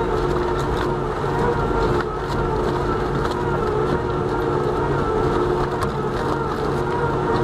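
Slow-speed wood shredder running steadily under load, its drive giving a constant hum with a few held tones, while its toothed rotor grinds a log with scattered cracks and snaps of splitting wood.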